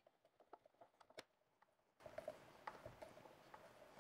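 Faint, scattered small clicks and scrapes of a hand screwdriver turning flathead wood screws through an aluminum table plate. A faint steady hiss comes in about halfway.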